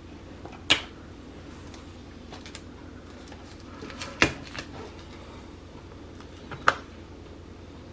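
Hands working the pull tab and plastic shrink-wrap on a boxed iPad mini: three sharp crackles and taps of plastic on the box, about a second in, just after four seconds and near seven seconds, with a few fainter ones, over a faint steady hum.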